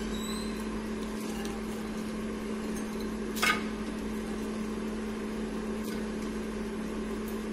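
Miyako air fryer's fan running with a steady hum while it preheats, and a brief clatter about three and a half seconds in.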